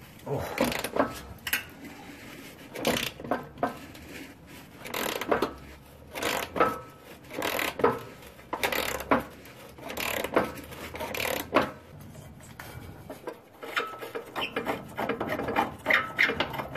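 Socket ratchet clicking and rasping in repeated strokes, about one a second, as a long rusty bolt is backed out of a 1999 Jeep Cherokee's frame. The strokes come quicker and denser in the last few seconds.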